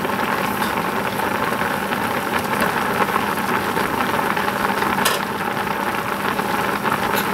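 Thick milk-and-cheese sauce simmering in a cast iron skillet, a steady bubbling hiss over a low steady hum, with a couple of faint clicks.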